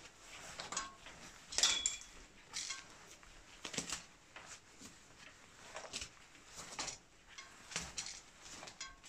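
Irregular handling sounds on a road bike's drop handlebar: short scrapes, rustles and light clicks as a gloved hand unwinds the bar tape, with a brief squeak about one and a half seconds in.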